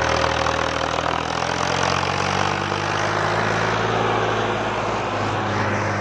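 Indo Farm tractor's diesel engine running steadily under load as it hauls a laser land leveller across the soil.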